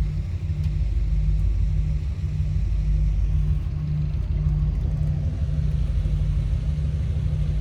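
A boat's engine running at idle: a steady low rumble with a pulsing beat about twice a second.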